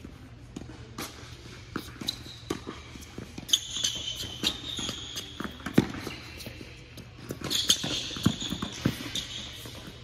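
Indoor hard-court tennis play: sharp pops of racquets striking the ball and ball bounces, echoing in the hall, with stretches of high sneaker squeaks on the court surface, over a steady low building hum.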